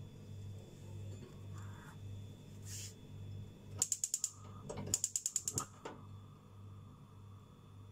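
Gas hob's electric igniter clicking rapidly in two short runs, about ten clicks a second, then the burner catching and burning with a soft steady hiss.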